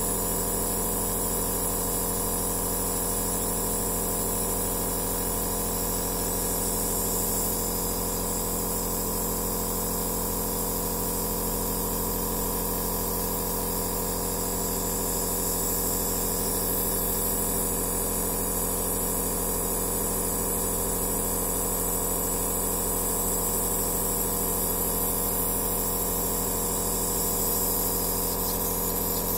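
Aerosol therapy nebulizer compressor running steadily: an even motor hum under a high hiss of air.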